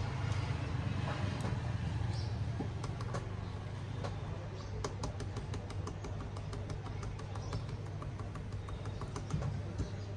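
Laptop keyboard keys tapped rapidly and repeatedly, a quick run of sharp clicks starting about three seconds in: the F12 key being pressed during start-up to call up the boot menu. A steady low hum runs underneath.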